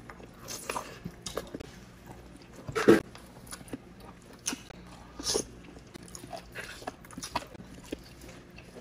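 Close-miked eating of grilled chicken inasal: irregular bites and chewing with wet mouth clicks, the loudest bite about three seconds in.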